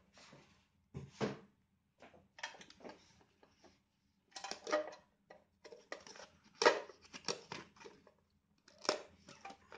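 Cardboard box and clear plastic packaging being handled and pulled apart: irregular rustles, scrapes and clicks, the loudest about two-thirds of the way through.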